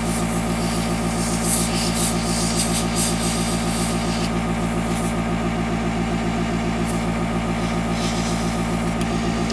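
Small airbrush compressor running steadily with a fast pulsing hum, while the airbrush hisses in short irregular spurts of spraying, mostly in the first half and briefly again near the end.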